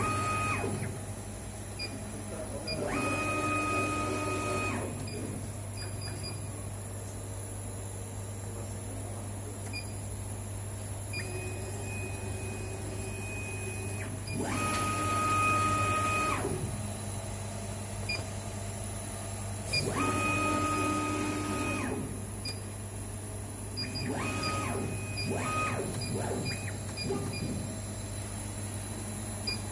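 Kamach 6090 CO2 laser engraving machine at work: a steady low hum runs throughout, and the stepper motors driving the laser head give a steady-pitched whine in four stretches of about two seconds each, with short ticks from brief moves between them.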